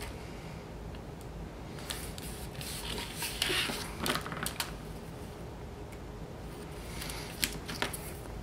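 Adhesive tape, 3/8 inch wide, being pulled off its roll and pressed along the edge of a piece of cardstock: quiet rustling and crackling a few seconds in, then a few light clicks and taps near the end.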